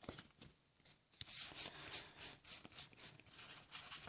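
Faint crinkling and tearing of a foil trading-card booster pack wrapper as it is pulled open. The rustling starts about a second in and runs on in quick, uneven bursts.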